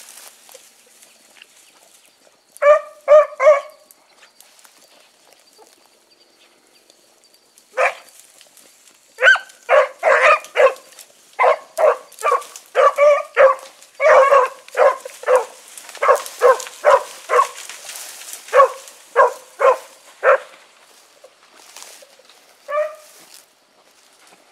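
Rabbit hounds barking in short repeated calls on a rabbit's trail: three quick barks, a pause, then a steady run of barks lasting about ten seconds, the dogs opening on a jumped rabbit.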